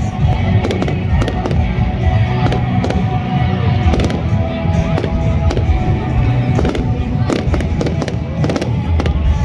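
Fireworks display: aerial shells bursting in quick, irregular succession, many sharp bangs over a continuous low rumble.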